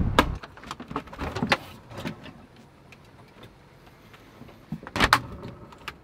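Clicks and knocks of a small fridge door in a truck camper being handled and opened, with a louder cluster of latch clicks about five seconds in. Wind noise on the microphone stops just after the start.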